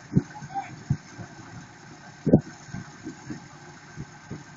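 Tractor diesel engines idling in the background, broken by irregular low thumps, the loudest a little over two seconds in.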